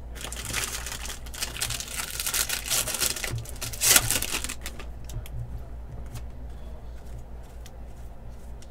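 Trading cards and card-pack wrappers being handled: a fast run of dry crackles and rustling clicks for about four and a half seconds, loudest about four seconds in, then a few lighter clicks over a steady low hum.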